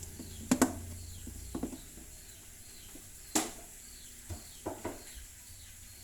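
Scattered clicks and knocks of measuring spoons and containers being handled in the kitchen, loudest a double knock about half a second in and a sharp click past the middle. Faint, repeated bird chirps run underneath.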